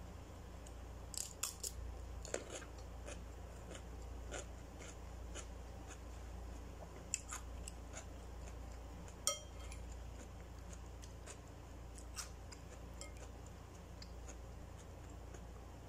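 Crunching bites and chewing of a raw cucumber, with scattered clicks of a fork against a ceramic bowl of soupy macaroni; the loudest is one short ringing clink a little past halfway.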